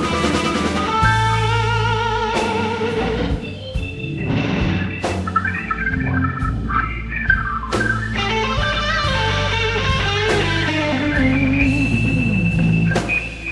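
AI-generated blues rock music: a lead electric guitar plays bending, wavering lines over bass and drums.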